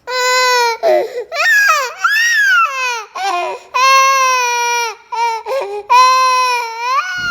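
A young child crying hard: loud, long wailing cries, one after another, with short catches of breath between them.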